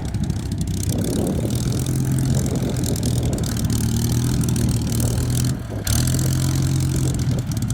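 Spitfire's piston engine droning steadily as the fighter flies past, with a brief dip about five and a half seconds in.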